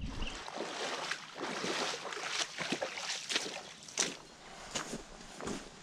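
Shallow river water splashing and sloshing, with irregular splashy steps through the water and mud at the edge.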